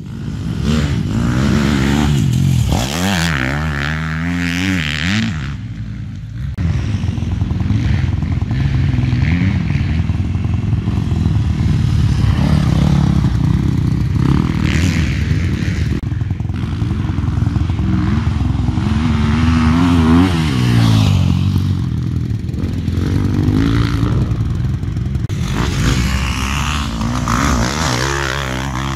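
Motocross motorcycle engines revving hard and easing off, the pitch rising and falling repeatedly as the bikes accelerate, shift and pass by.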